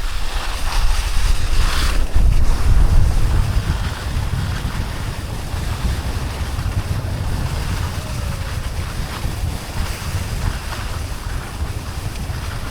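Wind buffeting the microphone of a skier moving downhill, a heavy rumble with a steady hiss over it, loudest in the first three seconds.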